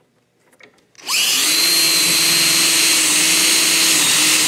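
DeWalt cordless drill spinning up about a second in and then running steadily, boring a 3/8-inch dowel hole into a wooden board through a doweling jig.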